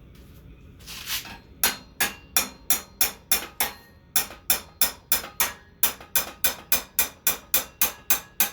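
Steady hammering, sharp blows about three a second, starting about a second and a half in with a brief pause near the middle.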